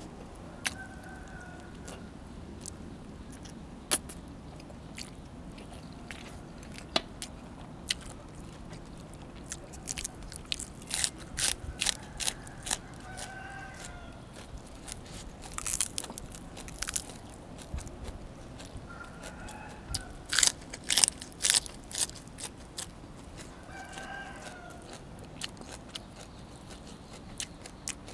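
Close-miked eating: crisp crunchy bites and chewing come in clusters, the loudest around halfway through and again later. Chickens call faintly in the background several times.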